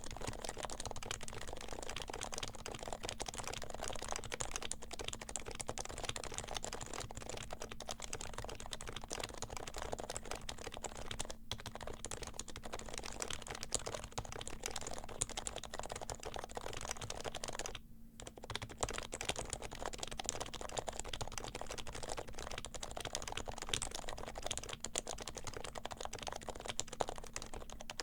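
Silenced HHKB Pro 3 Hybrid Topre keyboard being typed on steadily and quickly, a dense run of muted keystrokes. The typing pauses briefly about 11 seconds in and again at about 18 seconds. The keyboard has stock domes, sliders and stabilizers lubed with 205g0, and silencing rings.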